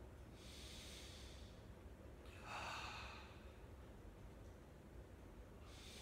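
A man's controlled breathing, faint: a breathy hiss about half a second in, a louder breath around two and a half seconds in, and another starting near the end.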